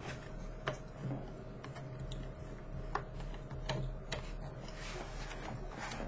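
Scattered light clicks and taps of hands and a small screwdriver on a laptop's plastic bottom case and memory access cover, over a faint steady hum.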